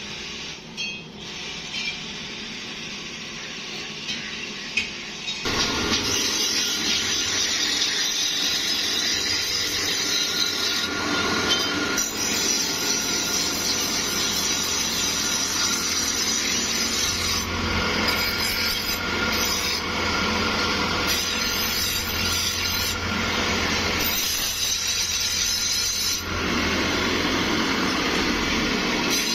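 Motor-driven grinding wheel running with a steady hum and the rasp of a steel sickle blade ground against it, starting about five seconds in. Before that, a few light metal knocks as sickles are handled.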